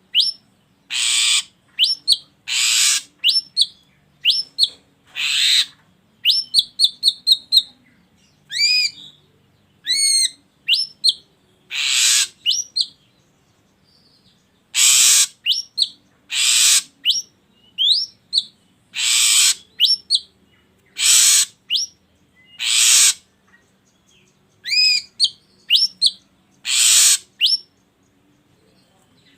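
Drongo calling: harsh rasping notes alternate with short, sharp upslurred whistles, in phrases broken by brief pauses, with one quick run of about half a dozen clipped notes near the quarter mark.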